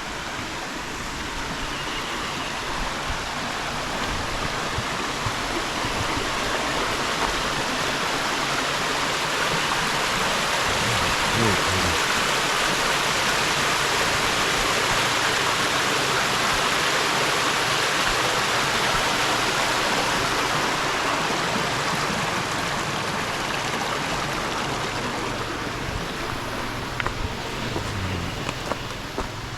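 Rushing creek water: a steady hiss that grows louder through the middle and eases off again toward the end.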